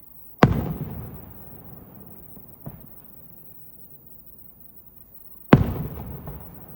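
Aerial firework shells bursting: two loud bangs about five seconds apart, each dying away over a second or two, with a faint pop between them.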